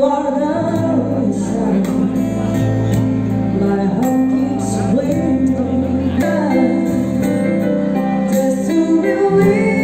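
Music with a singing voice over held notes and light jingling percussion.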